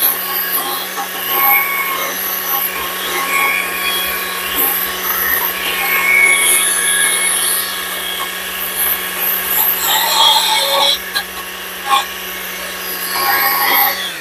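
Stihl MSA 140 C battery chainsaw with a carving bar running and cutting into wood: a steady electric-motor hum under the rasp of the chain, rising and easing as the cut loads and lightens.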